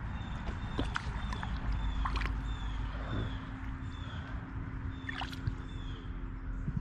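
Running stream water over a steady low rumble, with small splashes and knocks and a short high chirp that repeats about twice a second.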